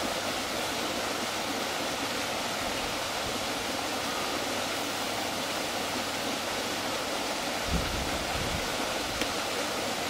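Steady, even rushing outdoor noise, with a low rumble of wind on the microphone coming in near the end.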